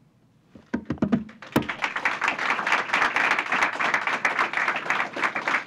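Audience applauding: a few scattered claps about a second in, then dense, steady applause from the crowd.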